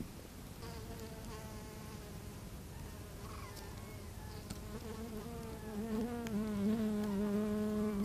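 A flying insect buzzing close by, its drone wavering in pitch; it starts about half a second in and grows louder and lower over the last two seconds.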